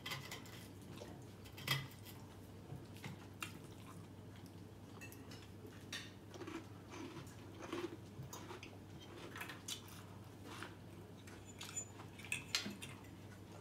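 Forks clinking and scraping on dinner plates while eating, in scattered light clicks, the sharpest about a second and a half in and twice near the end.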